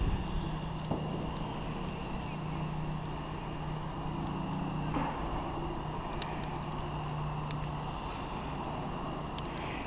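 A steady outdoor background drone with a wood campfire burning in it, giving a few faint, scattered crackles.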